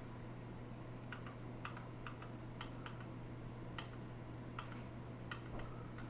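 Scattered single key presses on a TADA68 mechanical keyboard with light linear Gateron Clear switches: about a dozen short, irregular clacks. A faint steady low hum lies underneath.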